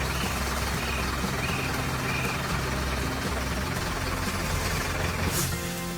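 Heavy construction machine's engine idling, a steady low rumble, with a brief whoosh near the end.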